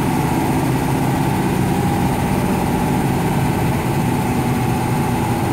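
Fahr M 44 combine harvester's engine idling steadily, with a steady whine over it.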